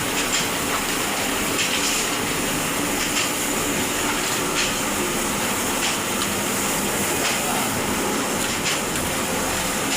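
Electric welding arc crackling steadily, a frying hiss broken by a few sharper pops.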